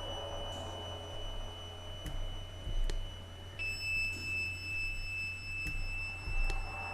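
Ambient electronic drone score: steady high pure tones held over a low hum, the main tone stepping slightly lower in pitch a little past halfway, with a few faint ticks.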